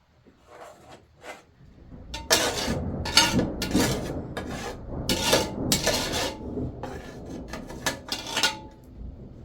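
A string of quick, rough scraping strokes, about a dozen in six seconds after two faint ones, like something hard being rubbed or scraped against a metal or wooden surface.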